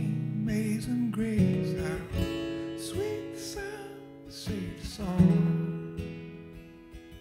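Acoustic guitar strummed in slow, sparse chords. Each chord is left to ring and fade, with a firm strum about five seconds in that dies away near the end.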